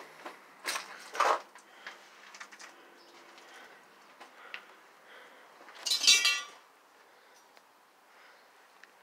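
Footsteps and scattered clicks and knocks on a debris-strewn floor, with one brief, loud squeak about six seconds in.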